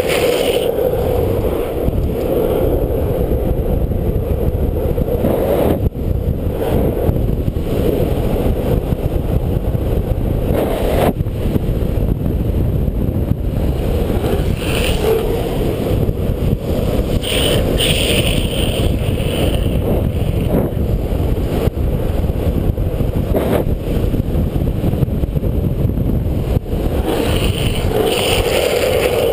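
Wind rushing over the microphone and longboard wheels rolling fast on rough asphalt during a downhill run, a steady loud roar with a few short, brighter hissing stretches in the bends, where the rider puts a gloved hand down.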